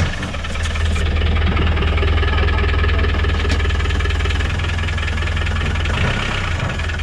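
Land Rover Defender's engine running steadily just after being started, on a test after a broken half shaft was replaced.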